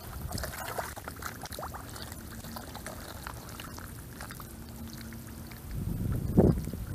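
Hands groping and squelching in a waterlogged mud hole, wet mud and water sloshing with small crackles, and a louder low slosh near the end.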